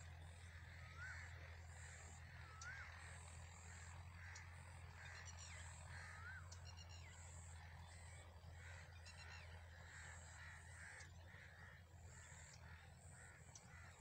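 Faint bird calls, short rising notes repeating every second or two, over a steady low hum.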